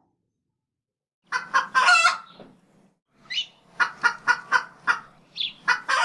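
Chicken sound effect: a loud call about a second in, then a quick run of sharp clucks, about four a second. It is used as a morning-time transition after the phone was left in the freezer overnight.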